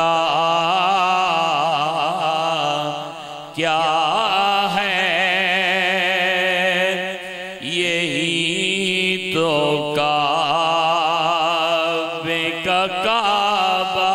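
An Urdu naat sung in long, drawn-out phrases with wavering ornaments on each note, broken by short breaths about 3.5 and 8 seconds in.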